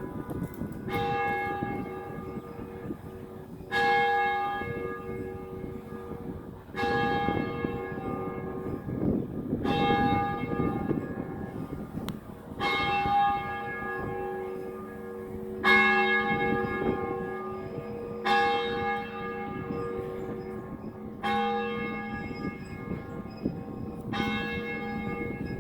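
Church bell tolling, struck about every three seconds, with each stroke ringing on and overlapping the next.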